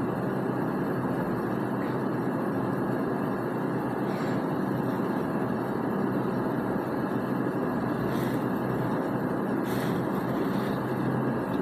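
Steady, even background noise, a low rush with no pitch or rhythm, with a few faint brief rustles.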